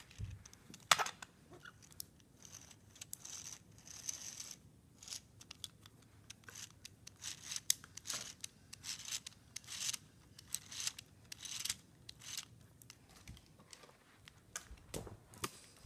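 Handling noise from a small Lego rubber-band-powered car: plastic parts clicking and rattling, with short scratchy rustles, and one sharp click about a second in.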